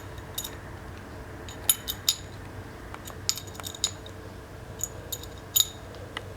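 Steel wrench clinking against the brass nut and body of a V300 valve as the nut is tightened down: about ten short, sharp metallic clinks at irregular intervals.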